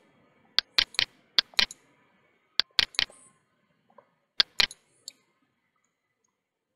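Clicks of computer keys and a mouse button: about a dozen sharp clicks, several in close pairs, stopping about five seconds in.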